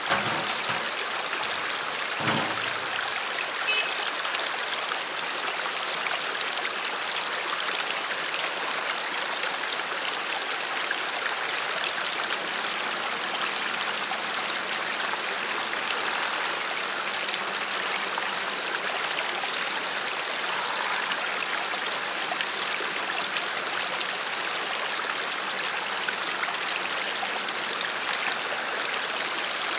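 Creek water rushing steadily over rocks and ice, with a single dull knock about two seconds in.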